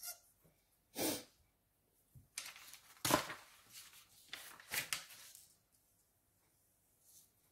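Sheets of paper rustling and sliding on a table as one drawing sheet is taken away and another laid down, in several short bursts, the loudest about three seconds in.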